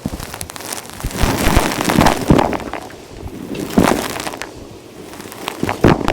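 Vacuum cleaner sucking up crunchy dirt and grit, with loud irregular crackling and clicking as debris rattles up the hose; the loudest bursts come about a second in, at four seconds and near the end.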